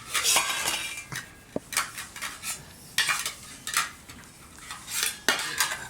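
Metal utensils scraping and clinking against cookware in irregular short strokes.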